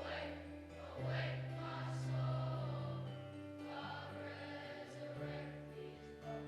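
Group of voices singing a hymn, with held notes from an accompanying instrument underneath.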